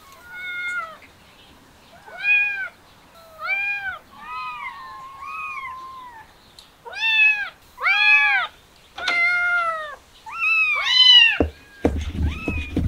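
Kittens meowing over and over, about a dozen high calls that rise and fall in pitch, excited by the smell of chicken. Near the end, a knife chops chicken on a cutting board in quick, rapid strikes.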